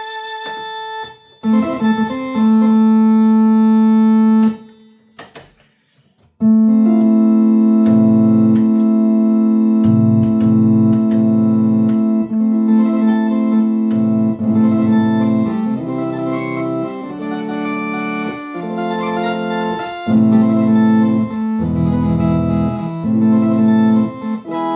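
Philips Philicorda 22GM755 organ played through its valve amplifier with vibrato and spring reverb: a held chord cut off after a few seconds, a pause of about two seconds, then a run of sustained chords over changing bass notes.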